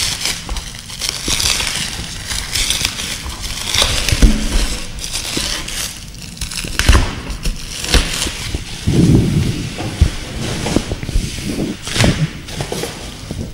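Plastic wrapping crinkling and rustling as it is pulled off a folding mini table tennis table, with occasional knocks and bumps from the table's frame being handled.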